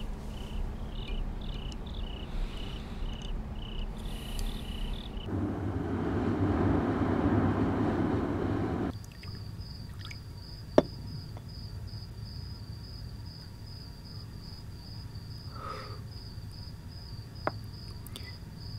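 Crickets chirping in an even pulsing rhythm, as a night ambience. About five seconds in, a louder rushing noise swells for some three seconds. After it, a higher-pitched cricket chirp carries on with a couple of faint clicks.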